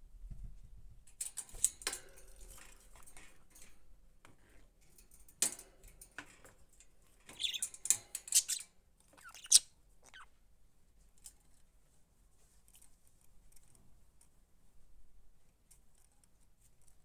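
Pet budgies pecking and nibbling at a pot of fresh grass: small crunchy clicks and rustles in short bursts, busiest about a second or two in and again between about five and ten seconds, with a few faint ticks afterwards.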